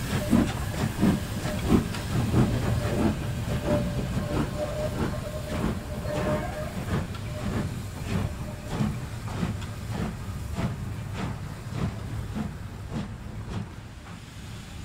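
A pair of double-heading 4-6-0 steam locomotives, one of them The Lancashire Fusilier, chuffing as they pull away, the exhaust beats regular at about two to three a second. The chuffing fades as the engines draw off.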